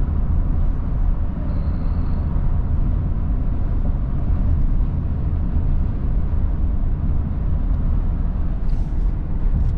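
Steady low road and engine rumble of a vehicle driving on the highway, heard from inside the cab.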